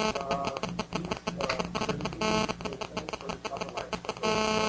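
Faint, distant speech: an audience member asking a question away from the microphone.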